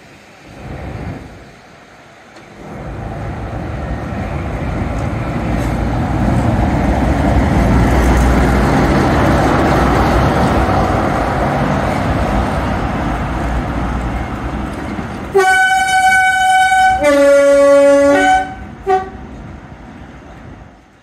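Class 45 'Peak' diesel locomotive running past with its Sulzer diesel engine, the engine noise swelling as it draws level and easing as it moves away. Near the end its two-tone horn sounds: a long high note, then a long low note, then a short toot.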